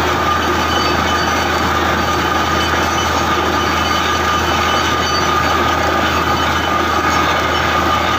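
Truck-mounted borewell drilling rig running, a loud, even machine noise with a steady high whine over a low hum.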